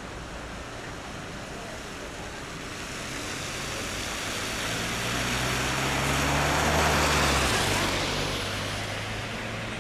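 A car driving slowly through deep flood water, the rush and splash of water off its tyres swelling to a peak about seven seconds in as it passes close, with the low hum of its engine underneath that drops in pitch shortly after the peak.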